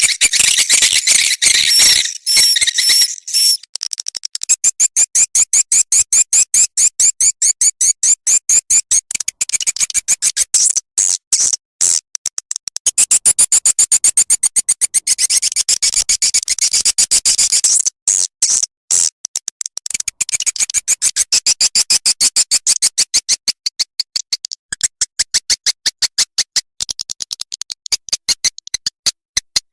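White-nest swiftlet calls played as a lure sound for a swiftlet house: dense trains of rapid, high-pitched chirps and twittering clicks, many a second, with a few short breaks partway through.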